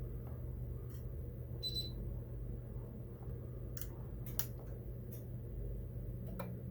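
A short, high electronic beep about two seconds in and a few light clicks, over a steady low hum: the EST3 fire alarm panel's keypad being worked while its trouble list is checked.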